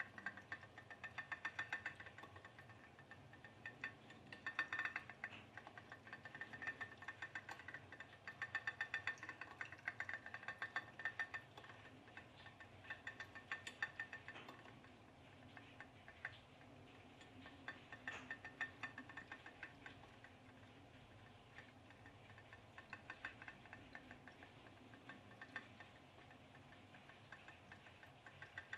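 Home-made pop-pop boat, an aluminium mackerel tin with a coiled aluminium tube boiler heated by a tea light, running with a faint, rapid ticking as the steam pulses water in and out of the tube. The ticking swells and fades in stretches.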